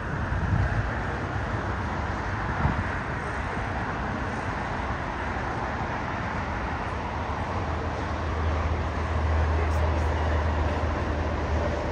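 Steady outdoor roar of distant jet airliner engines mixed with road traffic. A deeper low rumble comes in about eight seconds in.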